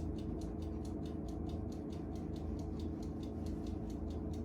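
Rapid, even ticking, about four to five ticks a second, over a low steady hum.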